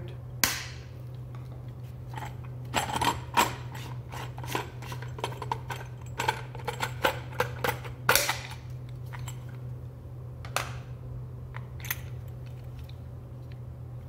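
Hard plastic housing of a red three-phase CEE form plug being pried open with a screwdriver and twisted apart by hand: a run of irregular plastic clicks, knocks and scrapes, a few louder knocks along the way.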